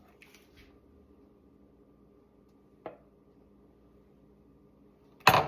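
Low, steady background hum with a faint click about halfway through and one short, sharp knock near the end, loudest of all.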